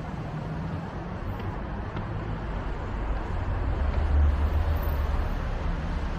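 Steady urban traffic noise from the road below an elevated walkway, with a low rumble that swells about halfway through.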